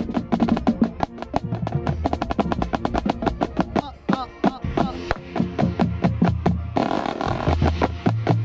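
Marching band playing at full volume, heard from up close at a marching snare drum: fast, crisp stick strokes on the drum over sustained low sousaphone and brass notes. A loud noisy wash comes in about seven seconds in.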